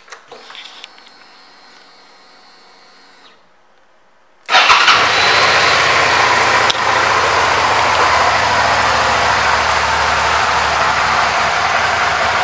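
Suzuki SV650's 645 cc V-twin being started: a faint hum for about three seconds, then a short pause, then the engine catches about four and a half seconds in and idles steadily.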